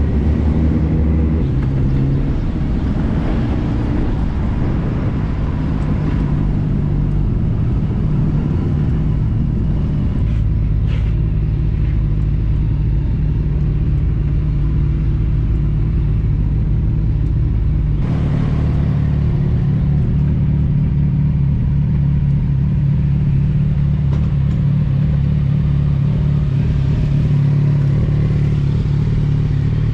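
Several motorcycle engines running at low speed and idling together in town traffic, a steady low engine hum whose pitch shifts about ten and eighteen seconds in.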